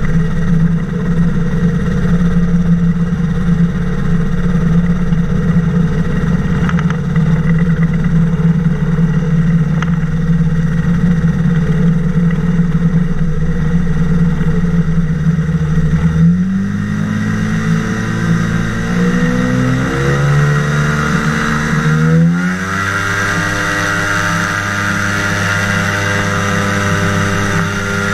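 Flying boat's engine running steadily at low throttle, then opened up in a few steps about two-thirds of the way through, its pitch climbing and holding higher as the boat gathers speed across the water.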